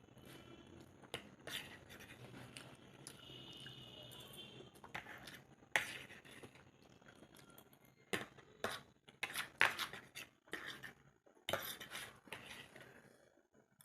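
Close-miked cutlery clinking and scraping against a plate in a run of irregular, separate knocks.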